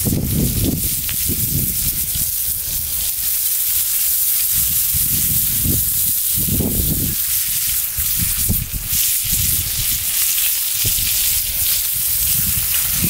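Venison steaks sizzling steadily in a hot cast iron skillet over a campfire, with a few sharp clicks as a fork turns them. Low rumbles come and go.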